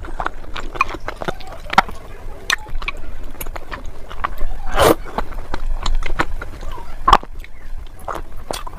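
Someone eating, with scattered crunches, clicks and chewing sounds, a few louder crunches about five and seven seconds in.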